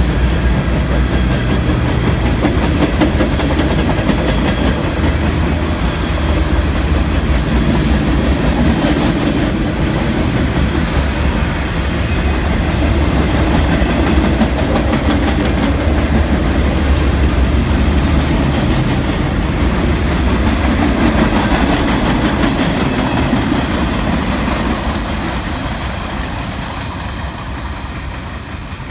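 Local freight train rolling past, its cars clattering over the rail joints with a steady rumble that fades over the last few seconds as the train moves away.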